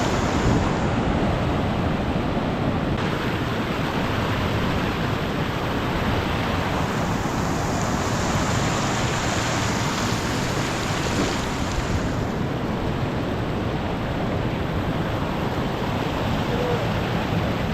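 Ocean surf surging over a rock shelf, with seawater rushing and pouring off the rocks in a steady wash that brightens for a few seconds in the middle.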